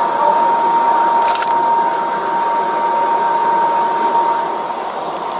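Steady rushing background noise with a constant high-pitched tone running through it, and a couple of faint ticks.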